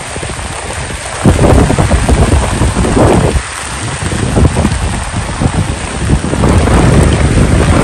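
Heavy rain falling, with a loud, uneven low rumble that grows from about a second in.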